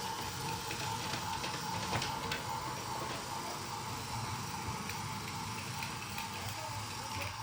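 Motorized toy train's small motor and gears whirring steadily as it runs along the track, with a few light clicks.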